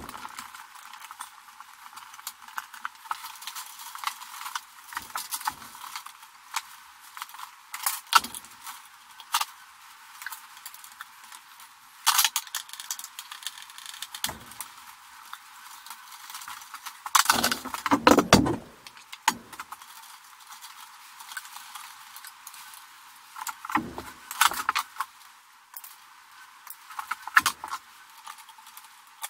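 Scattered clicks, taps and rattling of electrical cable and a hand tool being worked at a metal breaker panel, with a louder clatter a little past the middle.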